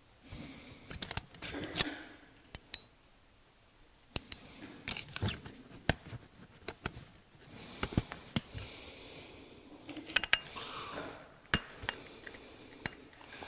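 Needle-nose pliers and small metal carburetor parts clicking and clinking irregularly, with scraping and rustling between, as the carburetor's jets are worked loose by hand.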